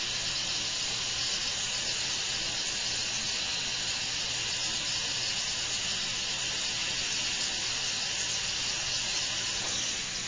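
Steady hissing of dental air equipment in a patient's mouth: a powder sprayer coating a tooth with silica scanning powder for a CEREC optical impression, with a suction tube held alongside.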